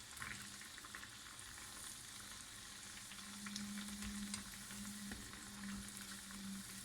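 Cornflour vada deep-frying in hot oil on high heat: a steady sizzle with small crackles and pops as the patties puff. A low steady hum runs underneath, louder in the middle.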